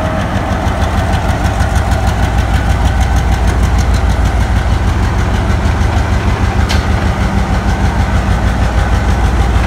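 GMCU-15 1500 horsepower diesel-electric locomotive engine idling at close range, a steady low throb. A single sharp click about seven seconds in.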